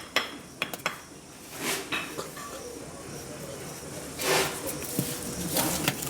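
A few sharp clinks and knocks in the first second, like small hard objects striking each other, then scraping and rustling noise with indistinct voices.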